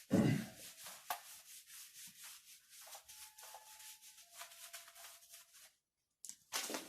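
A board eraser rubbing quickly back and forth across the board, about five strokes a second, with a short squeak or two, stopping shortly before the end; a few brief scrapes follow.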